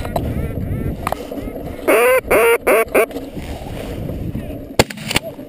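Four loud duck quacks in quick succession, each rising and falling in pitch, about two seconds in, followed by a couple of sharp clicks near the end.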